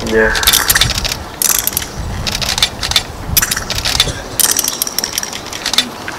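Metal handcuffs being ratcheted closed around a person's wrists: several quick runs of rapid clicking as the cuff arms are pushed through the locks.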